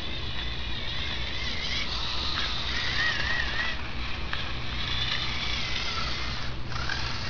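Lego Power Functions electric motor and plastic gears of a small buggy whining steadily as it drives, the whine wavering in pitch about three seconds in.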